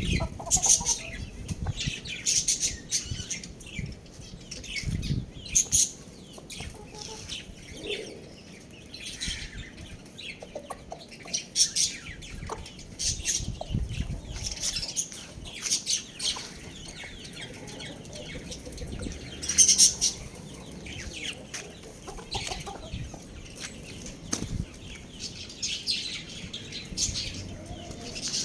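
Young roosters clucking and chirping in short, irregular calls, with wing flapping and scuffling.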